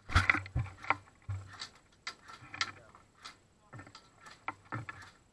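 A series of irregular sharp clicks and snaps, roughly one or two a second, some with a brief low rumble.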